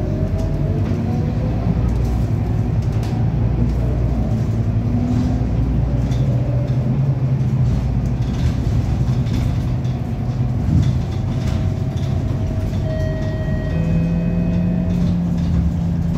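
A city bus's engine and gearbox heard from inside the passenger cabin while the bus drives: a steady low drone, with engine tones rising in pitch near the start and a faint high whine in the later part. The uploader thinks it doesn't sound right and suspects an engine or gearbox issue.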